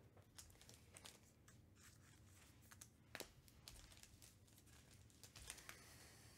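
Faint handling noise of trading cards and a card-pack wrapper: scattered light clicks and taps, with a soft crinkling of wrapper starting near the end.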